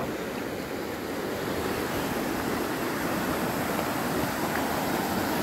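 Shallow mountain river rushing over rocks and small riffles: a steady, even rush of water.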